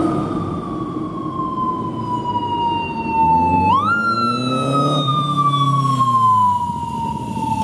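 Police motorcycle siren wailing: its pitch slides slowly down, jumps quickly back up a little under four seconds in, then slides down again. Underneath, an engine revs up and eases off around the middle.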